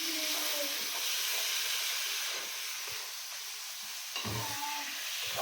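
Beef frying with tomatoes in oil, a steady sizzle, with a few knocks from a spoon stirring the pan about four seconds in.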